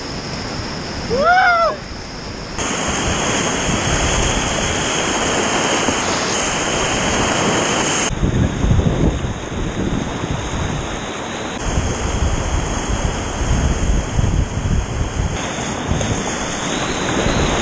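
Rushing whitewater of a river rapid, heard close up from a kayak paddling through it, a steady dense roar that shifts abruptly a few times. About a second in there is a short rising-and-falling call from a voice.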